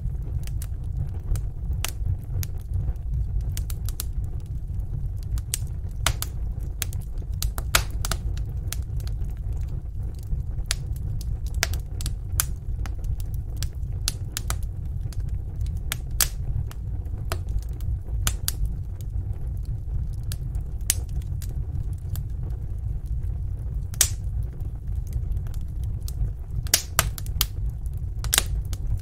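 Wood fire burning in a fireplace: a steady low rumble of the flames with irregular sharp crackles and pops, a few louder pops near the end.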